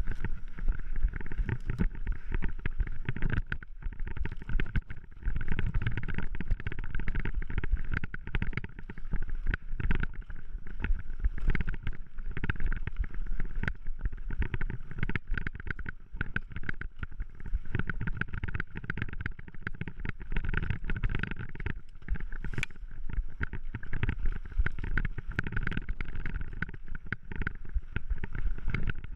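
Mountain bike riding fast down a dirt singletrack: tyres rolling and crunching over the trail, wind rushing over the microphone, and the bike and handlebar-mounted camera rattling with frequent sharp knocks over bumps and roots.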